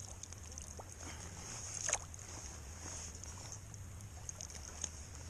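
Light splashing and dripping of lake water as a large Lahontan cutthroat trout is handled and lowered back into the water, with one sharper splash about two seconds in, over a steady low hum.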